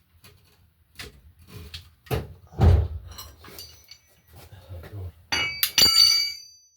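Metal tools or parts knocking and clattering in a series of separate hits, ending with a loud ringing metallic clang about five and a half seconds in.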